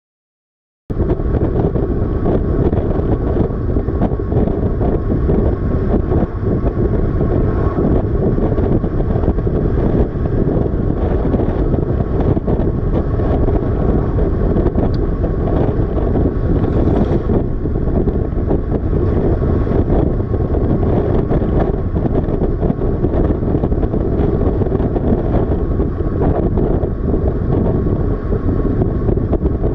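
Wind rushing over a helmet-camera microphone on a moving motorcycle, with the bike's engine and road noise underneath. It cuts in suddenly about a second in and then stays steady.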